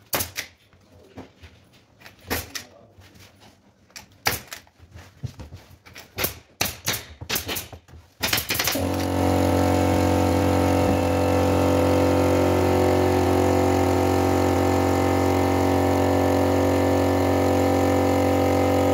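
Pneumatic upholstery staple gun firing staples in quick, irregular snaps. About halfway through, an air compressor's motor starts suddenly and runs steadily and loudly, refilling the tank that drives the stapler.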